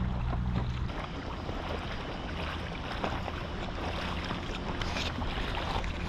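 Water lapping and splashing against the hull of a small sailing dinghy under way, with wind on the microphone and small knocks from the boat. A low steady hum stops about a second in.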